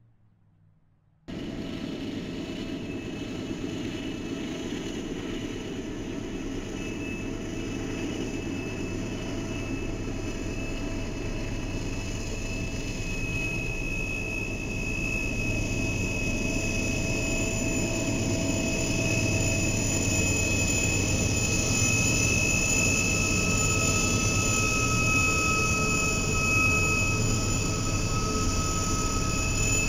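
After a moment of near silence, the sound cuts in suddenly: Norfolk Southern diesel-electric locomotives passing with a freight of coal hoppers, engines running with a steady rumble that grows slowly louder. A steady high whine joins about a quarter of the way in, and a second, lower whine comes in later.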